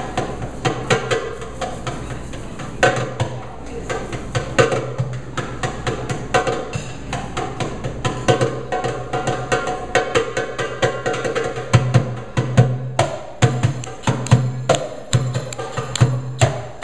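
Live goblet drum (doumbek) played by hand in a quick dance rhythm of sharp, closely spaced strokes, with a low steady tone underneath.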